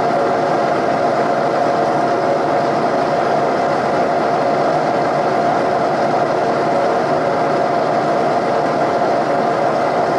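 Milling machine spindle running steadily while a drill bit bores out a broken exhaust manifold bolt in a cast-iron Ford 460 big-block cylinder head. It makes an even machine whine under a steady cutting noise.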